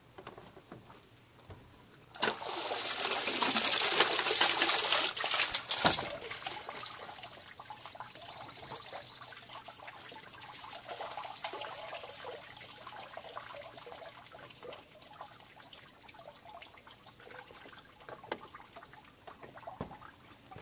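Water pouring and splashing for about four seconds, ending abruptly, then fainter trickling and dripping with small knocks that fade away.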